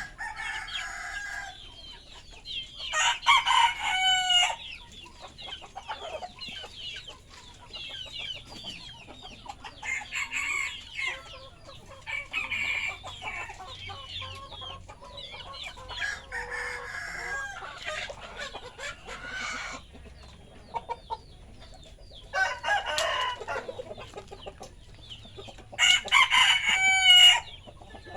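Kampung roosters crowing several times, each crow lasting about a second and a half. The loudest crows come near the start and near the end. Chickens cluck and chatter in between.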